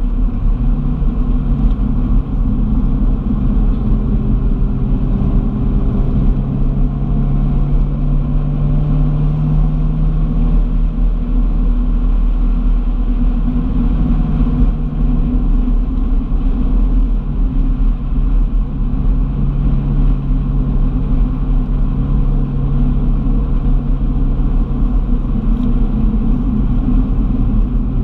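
Car driving along at a steady speed: engine hum and low road rumble, with the engine note rising slightly in the first couple of seconds.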